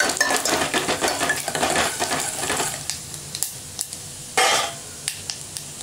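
Mustard seeds and chana dal frying in hot oil in a steel pan for tempering, the seeds spluttering. The crackling is dense for about three seconds, then thins to scattered pops, with one short louder burst about four and a half seconds in.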